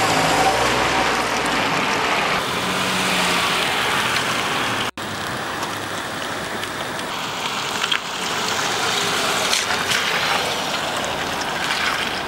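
Steady outdoor noise of a wet car park, a hiss of light rain mixed with road traffic, briefly cut off about five seconds in.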